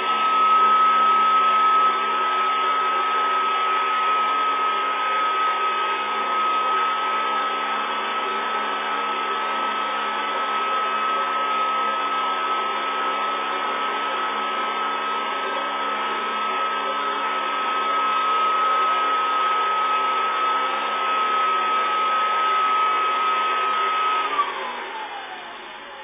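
Hoover Custom Convertible upright vacuum running, drawing suction through its attachment hose, with a steady whine over the motor noise. About 24 seconds in it is switched off and the motor winds down, its whine falling in pitch.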